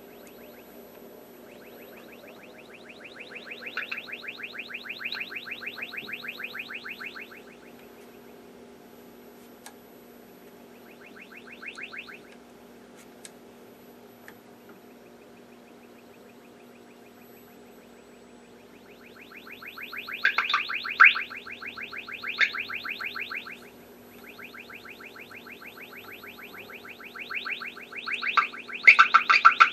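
A signal-generator test tone, played through an old television's loudspeaker, sounds as a rapidly pulsing buzz that swells up and drops away several times, loudest near the end. These sudden jumps in volume point to a dirty volume control or another intermittent fault in the set's audio stage. A steady low hum runs underneath.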